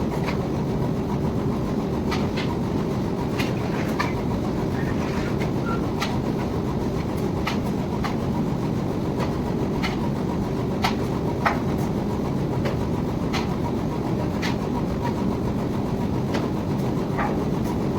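Wire drawing machine running steadily: a dense, even rumble with irregular sharp clicks and ticks over it.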